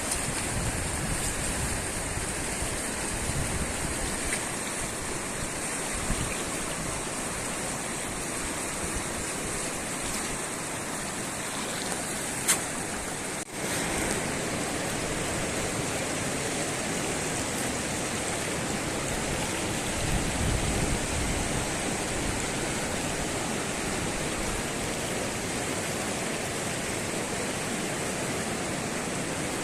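Fast-flowing muddy river water rushing steadily, with one brief sharp click near the middle.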